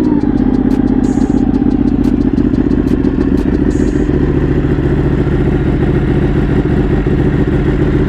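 Ducati 1199 Panigale's Superquadro L-twin engine, breathing through a Vandemon titanium undertail exhaust, idling steadily just after start-up. Its idle eases down slightly in the first second or two, then holds even.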